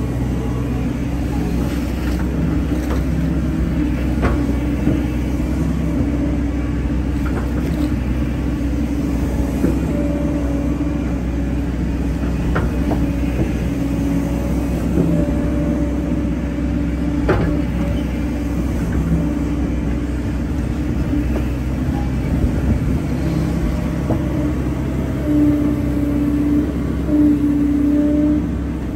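Hyundai hydraulic excavator's diesel engine running steadily under working load. Its hydraulic whine swells and fades, strongest near the end, with a few short knocks.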